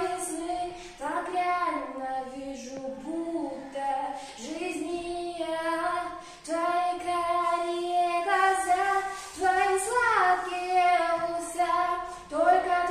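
A girl singing a melody, holding and sliding between notes in phrases separated by short breaths, with no instrument clearly heard.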